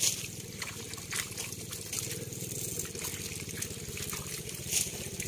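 Water splashing and trickling as a heap of small live fish flaps in shallow water on a net while hands sort through them, with a few sharper splashes, about a second in and near the end. A steady low hum runs underneath.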